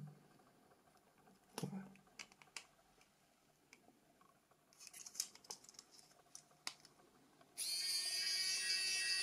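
Xiaomi electric precision screwdriver's small motor running in reverse, unscrewing a phone screw: a steady whine that starts suddenly near the end and holds an even pitch. Before it come a few light clicks and taps as the bit is handled and fitted to the screw.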